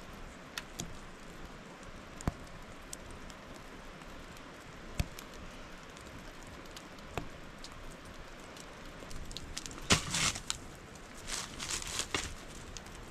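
Steady hiss of rain with scattered sharp snaps and cracks of wood. Louder bursts of snapping and rustling come about ten seconds in and again a second or two later.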